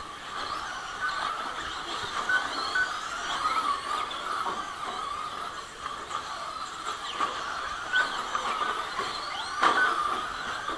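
Several electric Traxxas Slash 1/10-scale short-course trucks racing together, their motors whining in pitches that rise and fall as the drivers work the throttle.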